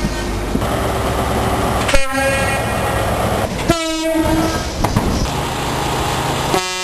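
Diesel locomotive air horns giving short blasts over the noise of a running train. One brief blast comes about two seconds in, a stronger one a little later, and another starts near the end.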